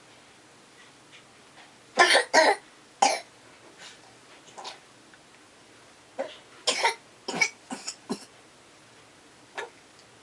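A young child coughing in fits: three hard coughs about two seconds in, a few weaker ones, then a quicker run of about five coughs around the middle, and one last cough near the end.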